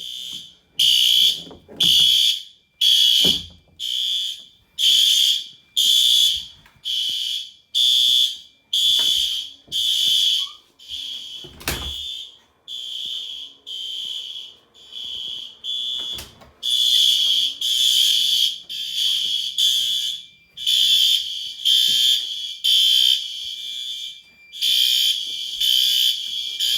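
Several System Sensor fire alarm horns sounding together in loud, repeating pulses about once a second. The pulses are not quite in step, so some overlap and others come out louder. Two sharp clicks cut through, about twelve and sixteen seconds in.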